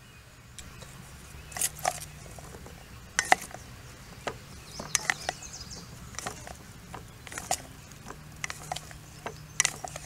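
Wooden spatula stirring chopped onions, peppers and green onions in a stainless steel mixing bowl: irregular clicks and knocks of wood against the metal bowl.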